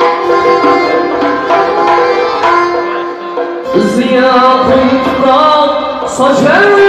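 Live band music in a Khorezm folk style, with accordion: quick repeated melody notes over a held drone, changing a little past halfway into slower held notes that slide up in pitch.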